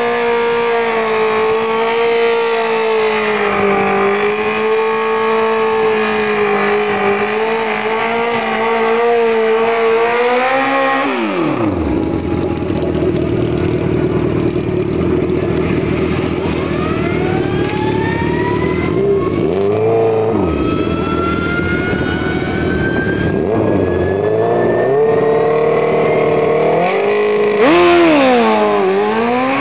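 Suzuki GSX-R drag-racing motorcycle's four-cylinder engine running steadily at raised revs, then dropping in pitch, with a short rev blip about twenty seconds in. Near the end it is revved hard and launched, the pitch dipping and then climbing quickly as the bike pulls away.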